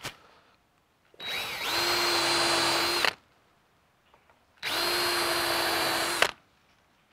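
Cordless drill boring countersunk pilot holes into a red cedar railing top: two runs of about two seconds each, with a steady whine. The first run rises in pitch as the motor spins up. A sharp click comes right at the start.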